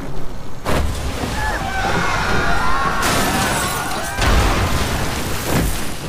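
Monster-movie sound effects: deep booms about a second in and twice more near the end, with high, wavering cries in between, over a film score.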